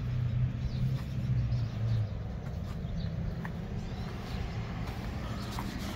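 1956 Dodge C3 pickup's 259 cubic-inch V8 idling, a steady low hum that eases off slightly about two seconds in.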